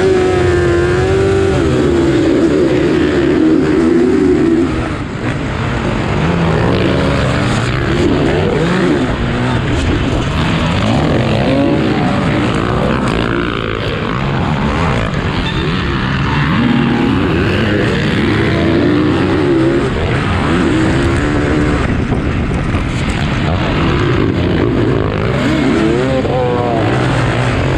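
Motocross bikes racing, their engines revving up and down again and again as they accelerate, shift and ease off through the track.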